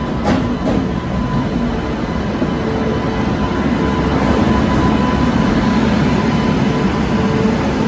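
Indian Railways WAP-7 electric locomotive rolling slowly past as it pulls into the platform, a steady running noise of wheels and machinery with a faint high whine.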